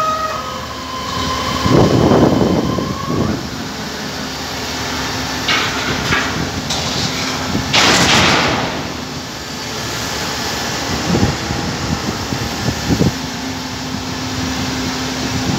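Zoomlion truck-mounted crane's engine running steadily while it lifts a steel beam, with several swells of rushing noise and a couple of short knocks about eleven and thirteen seconds in.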